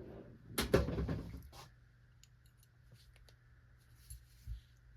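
Tools and small revolver parts being handled on a workbench: a clatter about a second in, then a few faint light clicks and two soft knocks near the end.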